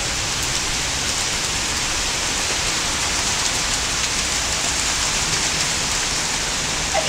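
Steady rain falling on a wet paved driveway, an even hiss.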